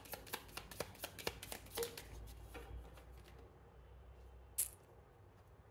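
A deck of divination cards being shuffled by hand: a soft, rapid patter of card edges for about two seconds, then fainter handling with one sharper flick about four and a half seconds in.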